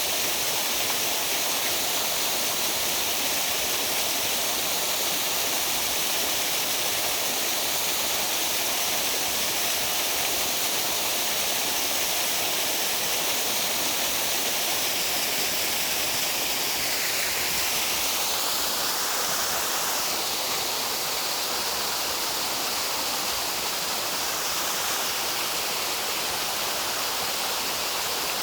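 Waterfall rushing steadily, a continuous roar of falling water. Its tone shifts briefly about two-thirds of the way through.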